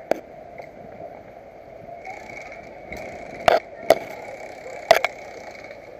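About five sharp clicks and knocks from climbing gear and rigging on a high ropes course, over a steady hiss: one near the start, then a close pair and another pair in the second half.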